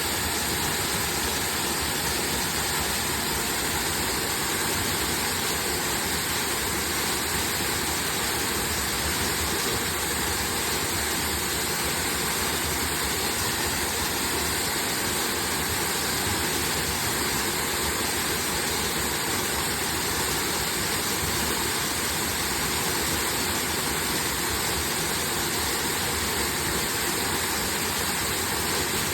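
Kanabiki Falls, a waterfall, rushing steadily: an even, unbroken roar of falling water.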